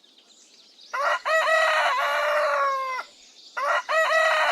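Rooster crowing twice. Each crow starts with a few short broken notes and ends in a long held note that drops off at the end. The second crow begins about three and a half seconds in.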